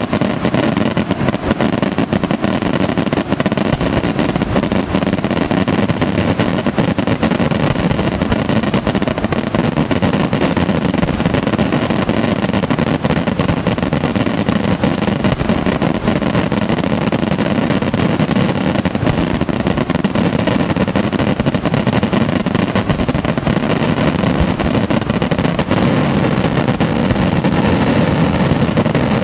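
Daytime aerial fireworks: a dense, unbroken barrage of overhead shells and firecrackers bursting, their bangs so close together that they merge into one continuous crackling rumble.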